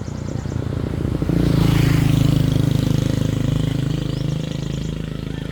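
A motor vehicle's engine passing close by: it swells loud about a second and a half in, then slowly fades.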